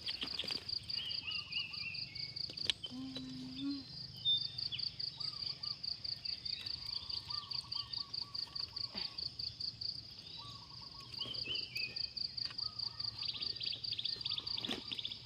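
Insects chirping in a steady, high, rapid pulsing trill of several beats a second, with short falling calls and lower warbling calls from other animals now and then.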